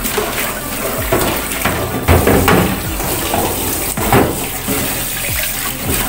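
Water running from a tap and splashing, with scattered knocks of things being handled.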